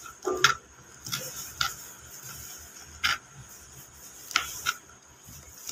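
Knife slicing fried chicken liver on a plastic cutting board: about six sharp, irregular taps of the blade striking the board, the loudest about half a second in.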